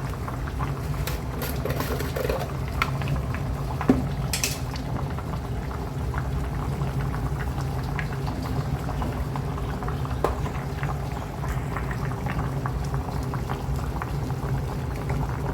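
Pot of meat and dried-fish stock boiling steadily, with constant bubbling and popping. A couple of light clicks come about four seconds in.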